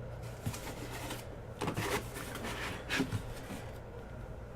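Cardboard hobby boxes scraping and knocking as they are worked out of a tightly packed case: a few short scrapes and light knocks over a steady low hum.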